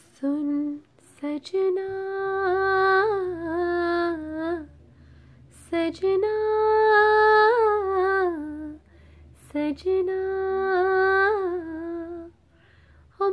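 A woman's voice singing a wordless, hummed melody in three long phrases, each with held, wavering notes and a short break for breath between them. A faint low hum sits underneath.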